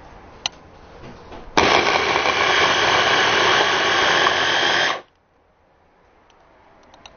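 Excelvan 500W DC hand blender motor switched on, driving the chopper attachment's blade through quartered apples. It starts suddenly about one and a half seconds in, runs at a steady loud whir for about three and a half seconds, and stops abruptly. A short click comes just before it.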